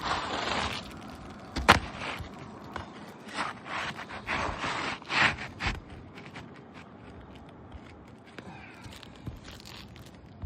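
Scraping and crunching against asphalt roof shingles in several bursts, with one sharp knock about a second and a half in.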